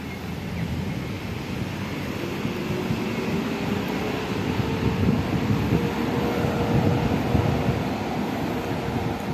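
Wind rumbling on the microphone, with a faint hum slowly rising in pitch from about two seconds in.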